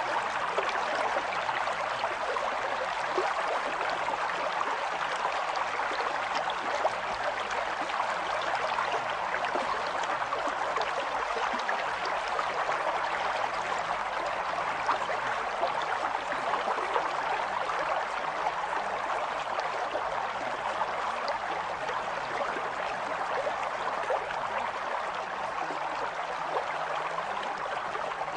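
Steady rushing sound of running water, even and unbroken.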